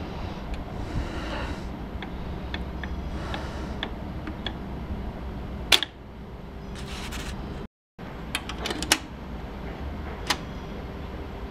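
Scattered light clicks and knocks, the loudest about halfway through and again near the end, over a steady low hum; the sound cuts out briefly about two-thirds of the way in.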